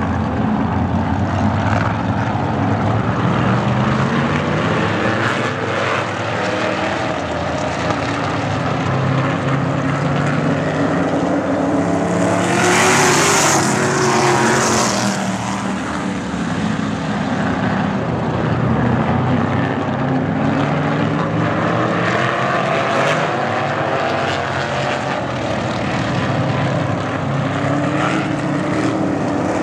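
Several vintage caged sprint cars racing in a pack, their engines revving up and down in pitch as they lap. They are loudest about halfway through, as the pack passes close.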